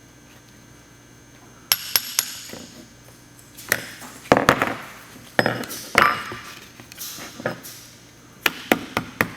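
Hammer tapping the tabs of a stainless steel accelerator pedal cover to bend them over the pedal: a few scattered metallic strikes with some scraping in between, then a quick run of light taps near the end.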